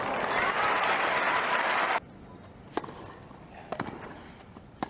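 Tennis crowd applauding and cheering a won point, cut off abruptly after about two seconds. Then a rally: three or four sharp racket strikes on the ball, about a second apart.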